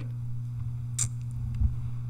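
Steady low electrical hum, with one short hiss about a second in.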